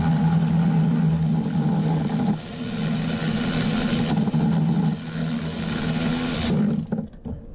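Cordless electric ratchet spinning out a 17 mm starter mounting bolt that has already been broken loose, its motor running with a steady hum. It eases off briefly about two and a half seconds in and again around five seconds, then stops near the end.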